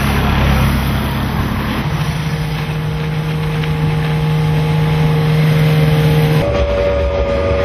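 Outboard motors on small fishing boats running steadily at speed. The engine note changes abruptly twice, as one boat gives way to another.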